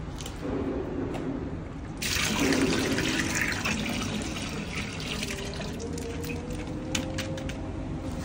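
Milk poured in a stream from a plastic packet into a large aluminium pot of water, splashing loudly as it starts about two seconds in, then settling to a softer pour.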